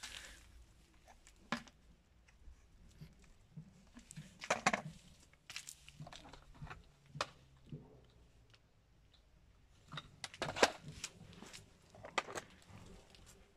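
Plastic hubcaps being handled on a concrete surface: scattered clicks, light knocks and scraping rustles, bunching together about four and a half seconds in and again around ten to twelve seconds.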